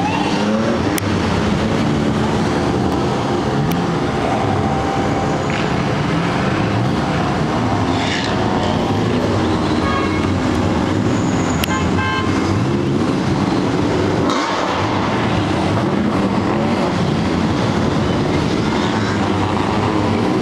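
Engines of a convoy of drift cars running and revving, a steady overlapping roar of rising and falling engine notes. A horn toots in a quick series of short blasts around the middle.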